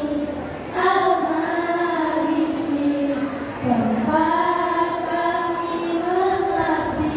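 A group of schoolgirls singing together in unison, holding long notes in two phrases with a short break between them about three and a half seconds in.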